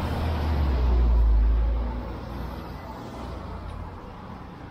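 A road vehicle passing close by, its low rumble loudest about a second in and then fading away.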